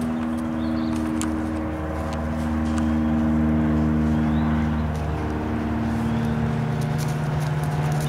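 A motor vehicle's engine running steadily nearby, its hum shifting in pitch about halfway through, with a few faint thuds that fit a horse's hooves galloping on grass.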